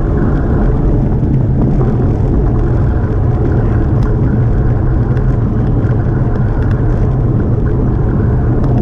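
Wind rushing over the microphone of a GoPro on a road bike descending at speed, a loud steady rumble mixed with tyre noise on asphalt.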